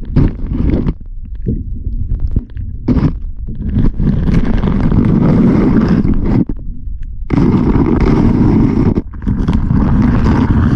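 Loud, low rumbling of wind buffeting the microphone, in long gusts that break off briefly about six and a half and nine seconds in.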